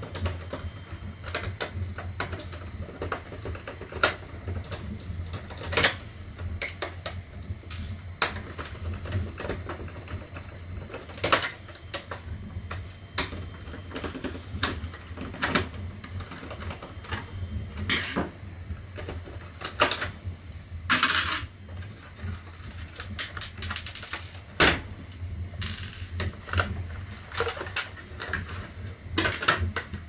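Irregular clicks, taps and knocks of hard plastic parts and a screwdriver as a Roomba robot vacuum's housing and bumper are worked apart by hand, over a steady low hum.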